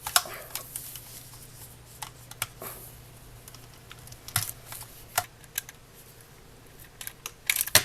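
Small flathead screwdriver working loose the truck screws of a plastic HO-scale model tank car: scattered light clicks and taps of metal on plastic, with a quick run of clicks near the end.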